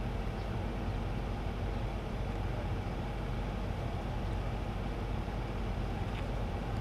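A steady low engine rumble, like an idling vehicle.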